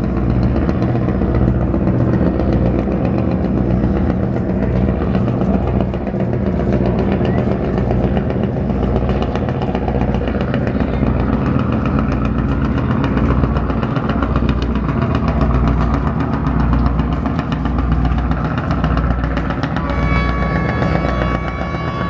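An engine running steadily with a low, even pulse, mixed with background music. Near the end, a few held musical notes come in.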